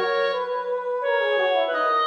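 Instrumental background music: a melody moving through held notes over a sustained low note in the first second.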